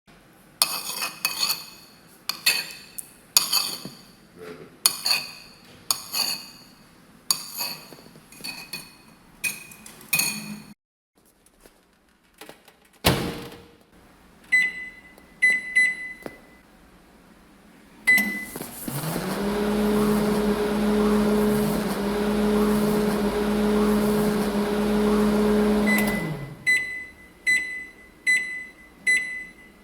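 A microwave oven is used. It begins with about a dozen ringing clinks of crockery or glass and a single thump. Then come keypad beeps, and the oven runs with a steady hum for about eight seconds. After the hum stops it gives a run of evenly spaced end-of-cycle beeps.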